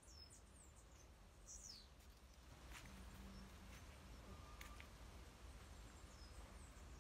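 Near silence, with a few faint, high, short bird chirps and a couple of faint clicks.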